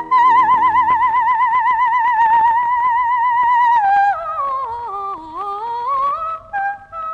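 Coloratura soprano singing a wordless operatic vocalise, almost unaccompanied. A long high note with wide vibrato gives way about four seconds in to a run that steps down and climbs back up, then short detached high notes near the end.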